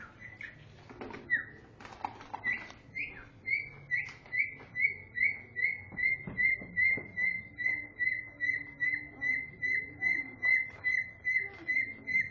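A short high-pitched squeak repeated steadily, about two and a half times a second, each one at much the same pitch; a few scattered ones lead in before it settles into the rhythm about two seconds in.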